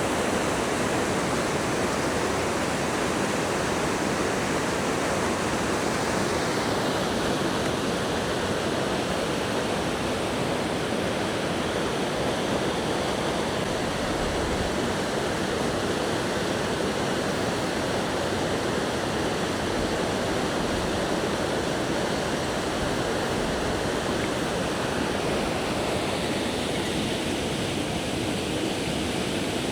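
Waterfall water rushing steadily, an even unbroken noise with no tone in it.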